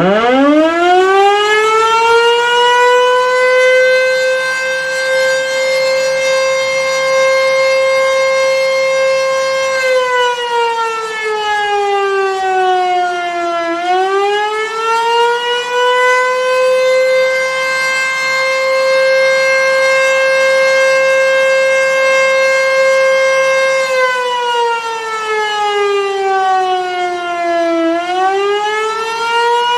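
Sentry 14V-B outdoor warning siren sounding the Attack signal. It winds up from a standstill to a steady high wail, holds it for about ten seconds, then slides down in pitch for about four seconds and winds back up, twice over.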